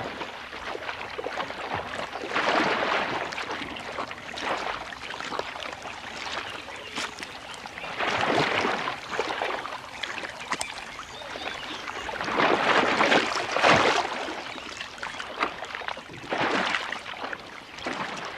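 Water splashing and sloshing in repeated surges as crocodiles thrash and spin on a carcass in a shallow pool.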